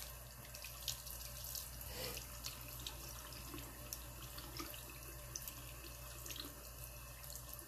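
Bathroom faucet running a thin steady stream into the sink, with small irregular splashes as a makeup brush is rinsed and rubbed against a palm under the water.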